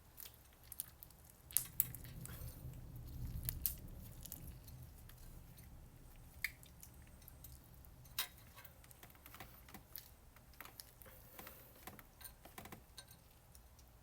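Slime with small rice and egg-bit add-ins being squished and pulled by hand, making scattered sharp clicks and small pops, with a low rumble of handling strongest about two to four seconds in.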